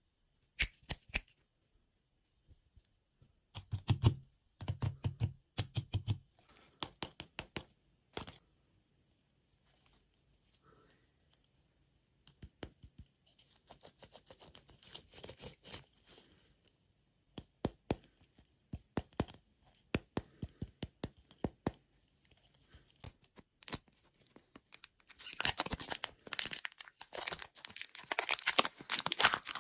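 Plastic food packaging being handled, crinkled and torn open, with scattered taps and clicks; the crinkling grows loud and dense near the end.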